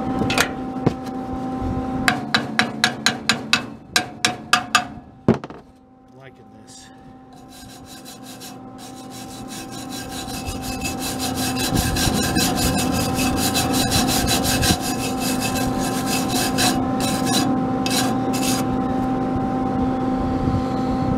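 Chipping hammer rapping the slag off a fresh flux-core weld on a steel bumper bracket, about a dozen quick strikes. Then, from about six seconds in, a hand wire brush scrubs the weld in fast strokes that grow louder.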